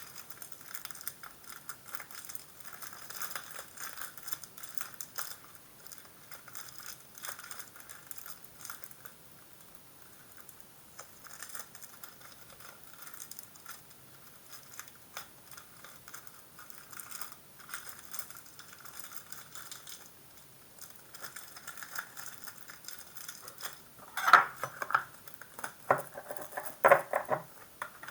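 Rustling, light crinkling and small clicks of Pokémon trading cards and their packaging being handled, with a few louder crinkles in the last few seconds.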